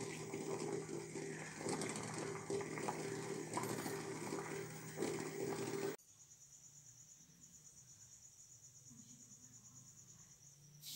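Eggs boiling in a pot of water, bubbling and crackling at a full boil. About six seconds in this cuts off abruptly to a much quieter background: a faint high, evenly pulsing chirp over a low hum.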